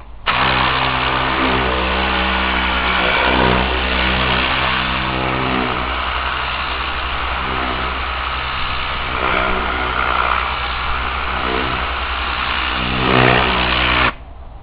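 Tornador compressed-air cleaning gun blowing: a loud rushing hiss with a buzzing whirr from its whipping tube. It switches on sharply at the trigger and cuts off suddenly after about fourteen seconds.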